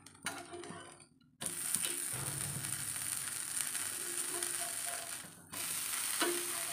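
Millet dosa sizzling on a hot tawa while a spatula scrapes under it and lifts the crisp, roast-style dosa. The sizzle comes in suddenly about a second and a half in and drops out briefly near five seconds.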